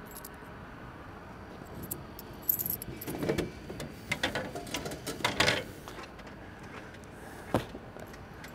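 Coins clinking and jingling in several short clusters as change is collected from a vending machine's coin return, with a single sharp click near the end.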